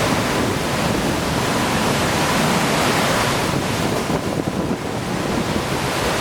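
Hurricane-force wind and rain blowing hard, a steady loud rushing noise, with wind buffeting the microphone.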